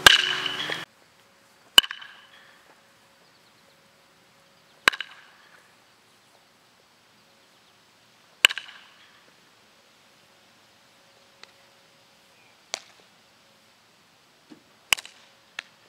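A metal baseball bat hitting pitched balls in batting practice: about six sharp cracks, each with a brief ring, spaced three to four seconds apart, with a few fainter knocks between them.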